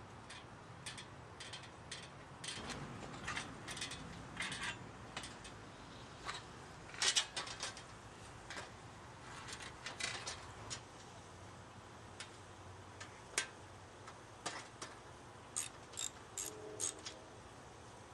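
Irregular metallic clicks and clinks of hand tools working on a rusty bicycle's steel parts during disassembly, with a cluster of sharper knocks about seven seconds in and a quick run of clicks near the end.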